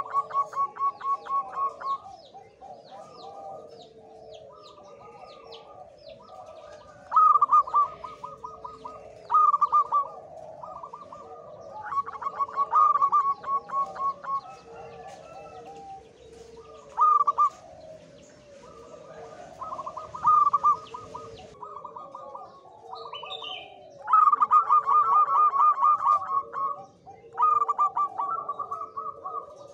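Male zebra dove (perkutut) singing in breeding condition: repeated bouts of rapid, evenly pulsed cooing notes, some bouts lasting two to three seconds, with quieter cooing and faint high chirps of other birds behind.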